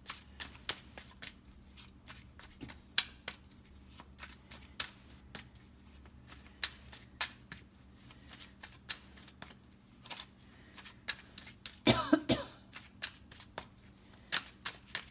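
Tarot cards being shuffled by hand: a long run of irregular light clicks and flicks. A single cough about twelve seconds in.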